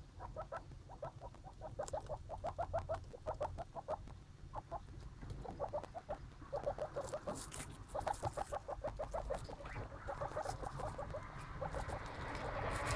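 Baby skinny pigs (hairless guinea pigs) squeaking in quick runs of short chirps, several a second, over and over. Near the end there is a rustling noise, like hay or shavings being stirred.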